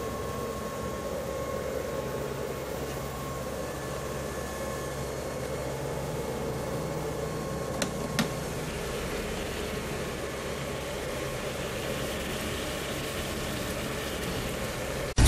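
Steady hum and hiss of electrical equipment running under about 650 W of load, with faint steady tones in it. Two light clicks come about eight seconds in.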